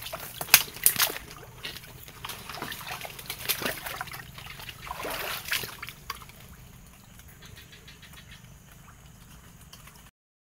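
Footsteps wading through shallow swamp water, with irregular sloshing splashes that thin out about six seconds in to a faint, steadier water sound.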